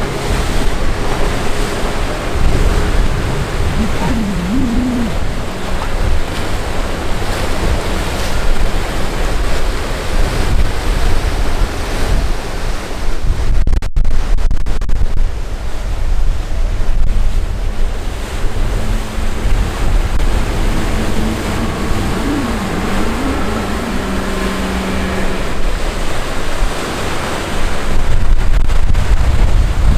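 Rushing, churning water of fast current and standing waves, with heavy wind buffeting the microphone. A faint outboard engine drone wavers in briefly about four seconds in and again after about twenty seconds.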